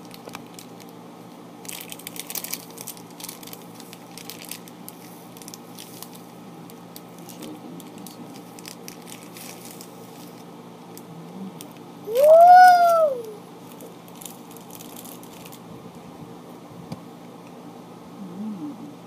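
Clear plastic candy wrapper crinkling as a gummy is worked out of it, mostly in the first few seconds. Past the middle comes a loud, high-pitched squeal, about a second long, that rises and then falls in pitch.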